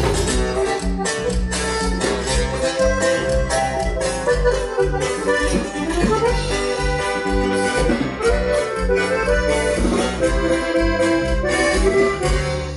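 A live band playing an instrumental passage led by accordion, over strummed guitar and drums with a steady beat.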